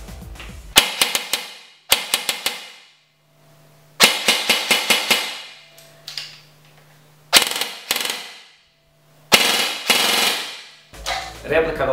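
Krytac War Sport LVOA-C airsoft electric gun (AEG) firing in five bursts of rapid shots, its gearbox cycling on an 11.1 V LiPo battery. The longest burst comes about four seconds in; the others are shorter.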